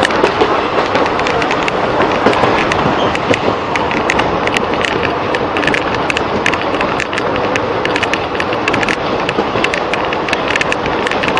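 Passenger train running at speed, heard from an open coach door: a steady rush of wheel and wind noise with a quick, uneven run of sharp clicks and clacks from the wheels on the track.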